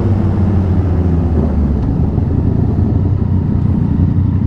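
Motorcycle engine and exhaust running steadily on the road, a low, even drone with no sharp revs.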